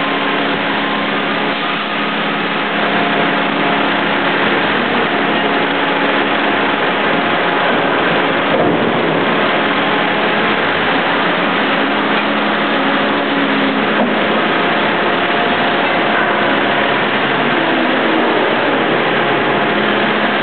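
Steady, loud machinery noise from a hydraulic forging press and its handling machine working a red-hot ring, a continuous rush with a steady low hum under it and no distinct blows.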